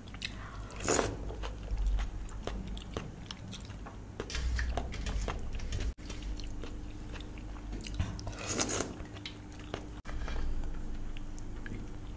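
Close-up eating sounds: a person biting and chewing food with many small wet mouth clicks, and two louder bites or slurps, one about a second in and one near the end.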